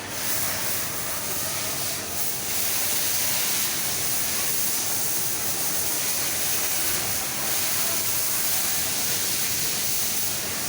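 Conveyor machine running with a steady, even hiss.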